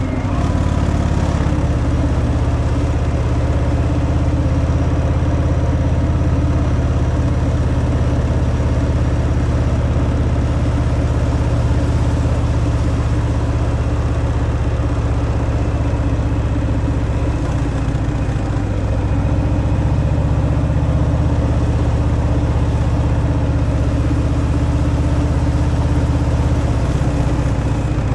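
Harley-Davidson Fat Boy's air-cooled V-twin running steadily through its stock exhaust, a continuous deep engine note with small shifts in pitch.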